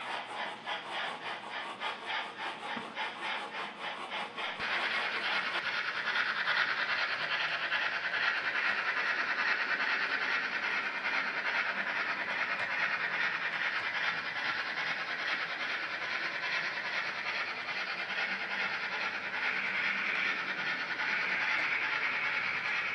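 Model steam locomotive sound from a DCC sound decoder: rhythmic chuffing for the first few seconds, then, after an abrupt change, a steady steam hiss that holds to the end.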